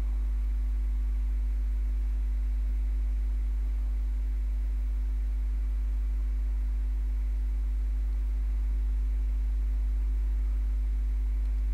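Steady low electrical hum with two fainter steady tones above it, unchanging throughout; no other sound.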